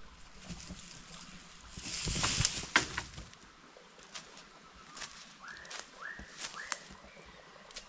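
Rustling of dry leaf litter and brush with twig snaps and crackles as a long stick is pulled up from the forest floor and handled, loudest about two seconds in. Later a bird calls three times, each note rising and then holding.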